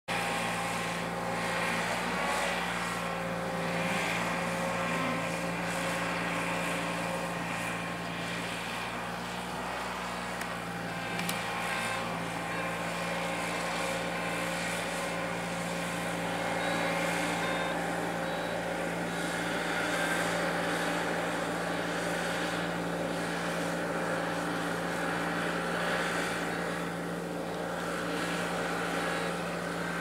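Engine of a small ride-on tandem road roller (MUC-300) running at a steady speed as the roller drives over turf, an even hum with a strong low note.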